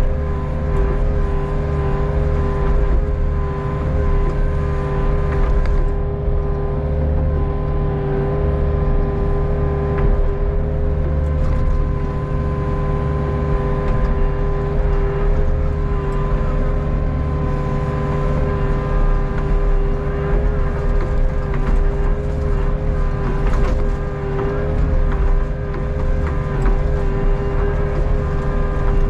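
Hitachi Zaxis 48U mini excavator's diesel engine running steadily, with a steady whine over the engine, heard from the operator's cab while the boom and bucket work.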